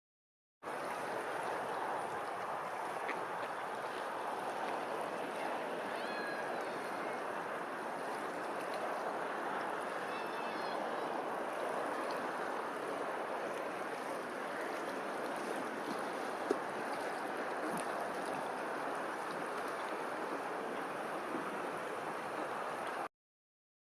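Steady rushing outdoor noise, like running water, with two brief faint animal calls about six and ten seconds in and a single sharp click past the middle.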